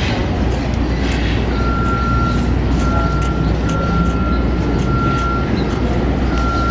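City street traffic running as a steady low rumble. From about a second and a half in, a single high flat beep repeats roughly once a second.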